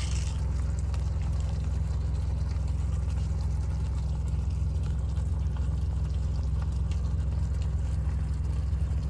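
Steak sizzling in a frying pan on an electric hotplate, a steady hissing fry, over a constant low hum.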